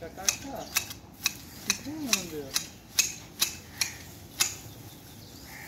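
Manual hedge shears snipping leafy shrub twigs: a steady run of crisp clicks, about two a second, stopping about four and a half seconds in.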